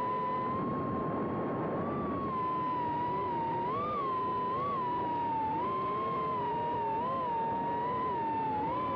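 Electric RC short course truck's motor and drivetrain whine, a steady high whine that wavers up and down in pitch with the throttle, over a rough rumble of tyres on the dirt track.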